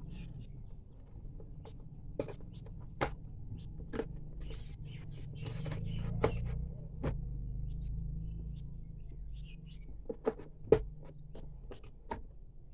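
Hand tools being handled in a moulded plastic tool case: scattered clicks and knocks of plastic-handled screwdrivers and a tester pen against the case's plastic slots, the sharpest knock near the end. A low steady hum runs underneath and fades out about ten seconds in.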